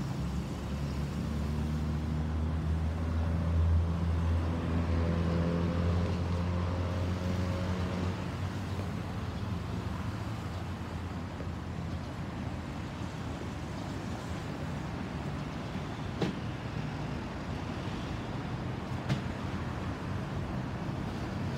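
Distant Airbus A321neo airliner with CFM LEAP-1A engines flying over: a low rumbling drone, strongest over the first several seconds, easing into a steady wash of noise. Two sharp clicks come in the last few seconds.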